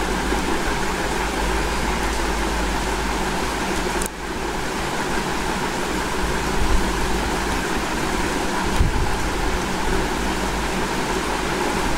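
Steady rushing background noise with a low rumble underneath, and a light click about four seconds in.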